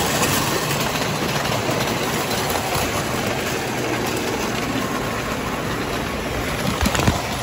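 Tinplate toy train running on its metal track: a steady rolling noise of the cars, with a couple of sharp clicks near the end.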